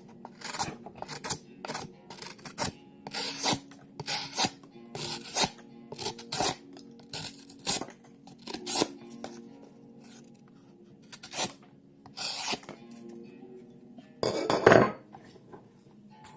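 A knife blade scraping or rasping against a hard surface in many short strokes, about one or two a second, with a pause in the middle and a longer, louder scrape near the end. Background music runs underneath.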